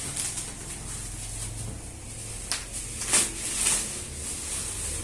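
Laptop box and packaging being handled: a sharp click about halfway through, then a short rustle of packaging, over a steady low hum.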